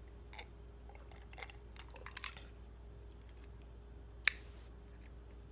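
A person sipping sparkling soda from a glass: faint sipping and mouth sounds with small scattered clicks, and one sharper click about four seconds in.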